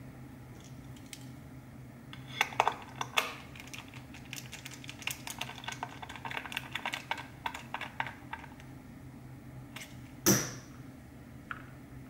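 Small sharp clicks and ticks of a precision screwdriver driving the bottom screws of a keyboard case, in a busy run over several seconds. Then a single loud, ringing clink about ten seconds in.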